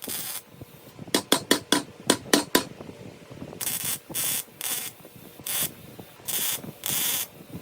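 Welding on the steel tank in short stitches: a quick run of sharp clicks, then bursts of hiss about half a second long, starting and stopping again and again.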